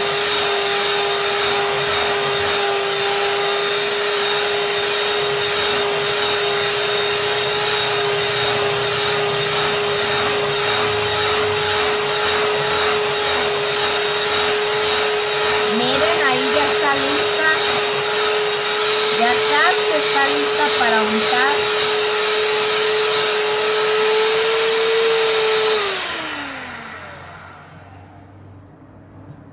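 Electric hand mixer running steadily at one speed, its beaters whipping a thick cream frosting in a glass bowl. Near the end the motor is switched off and winds down.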